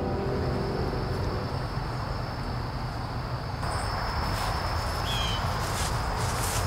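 Outdoor ambience: a steady high insect drone over a low rumble, with a short bird chirp about five seconds in.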